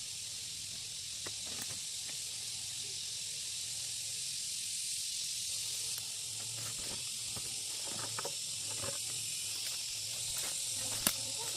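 Steady high-pitched hiss of outdoor background noise, with a few faint knocks and clicks scattered through it.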